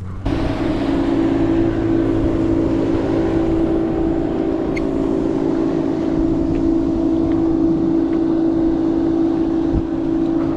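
Motorboat engine running at a steady speed, a constant loud drone that starts abruptly.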